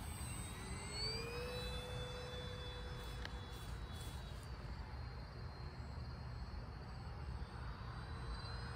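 Whine of a battery-powered RC Corsair model plane's electric motor and propeller in flight. The whine rises in pitch about a second in, then holds and fades, over a steady low rumble.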